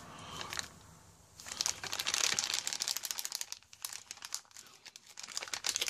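Plastic sleeve of an MRE flameless ration heater crinkling as the food pouch inside is shaken and squeezed to work the water into the heater pad. The crinkling starts about a second and a half in and thins out toward the end.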